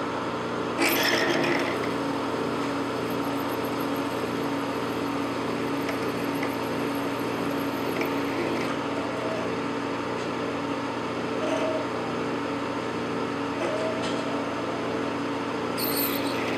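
Metal lathe running while a 3/8-inch high-speed-steel twist drill cuts into a spinning 316L stainless steel workpiece lubricated with cutting oil. It makes a steady machine hum under a constant cutting noise, with brief sharper scraping noises about a second in and near the end.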